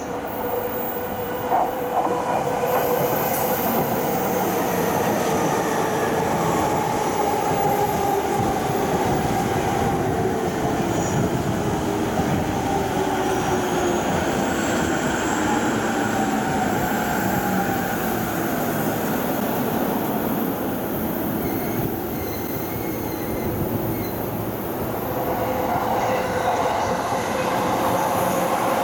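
Chuo-Sobu local line electric commuter train pulling into the platform and braking to a stop, its motor whine falling slowly in pitch as it slows, over wheel and rail noise. Wind buffets the microphone.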